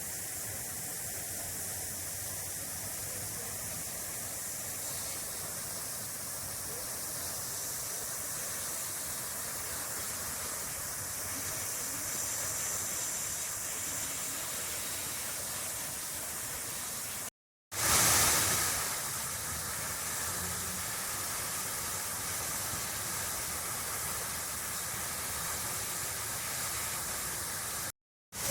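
Park fountain water splashing and falling in a steady rush, briefly cut off about two-thirds through.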